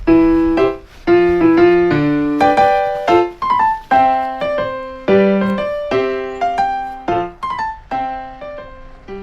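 Background music: solo piano playing a gentle melody with chords, the notes struck and left to ring away.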